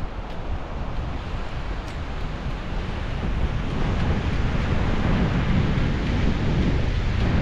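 Wind buffeting the microphone of a cyclist riding a road bike: a steady rushing noise, heaviest in the low end, that grows a little louder about halfway through.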